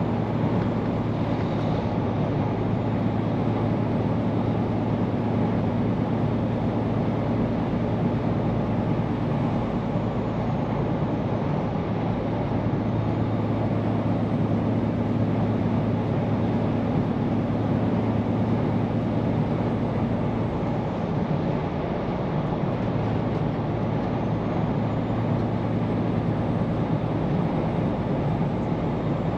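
Scania P410 truck under way: the engine's steady low drone over tyre and road noise, easing briefly about two-thirds of the way through.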